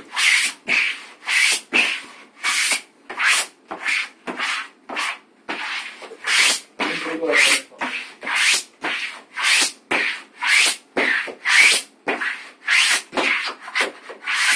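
Sponge rubbing back and forth over freshly hung wall covering, a regular run of short swishing strokes about two a second.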